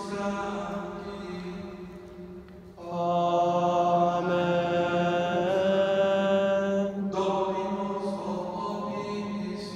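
A voice chanting in long held notes, in three phrases, the middle one the loudest, with a steady low tone underneath.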